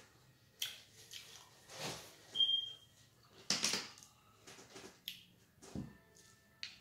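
Breathing and mouth sounds of a person eating close to the microphone, in short scattered soft bursts, with a brief high squeak about two and a half seconds in. Near the end, a knock and a click as a plastic drink bottle is picked up off the table.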